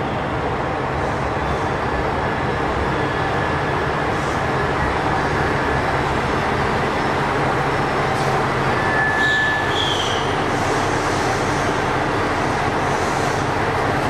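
JR Shikoku 2700 series diesel multiple unit pulling into the platform and coming to a stand, its diesel engines running steadily under the rumble of the train. There is a brief high squeal about nine seconds in.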